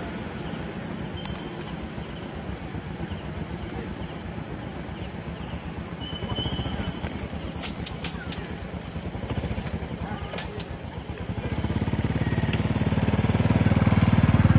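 Steady high-pitched buzzing of insects, with a low motor rumble underneath that swells louder near the end, like a motorcycle drawing closer.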